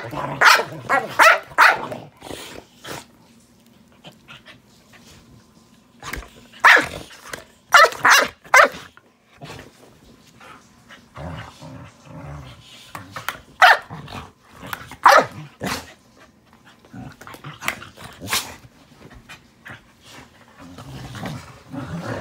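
A corgi and a Belgian Malinois play-fighting: short barks in clusters, a few in the first two seconds and another run about a third of the way in, then single barks, with low growling between.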